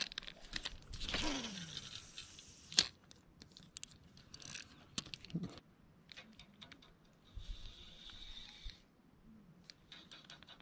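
Spinning reel being cranked by hand to take in fishing line: irregular clicks and rattles from the reel's handle and gears, with two longer stretches of whirring, about a second in and again near eight seconds in.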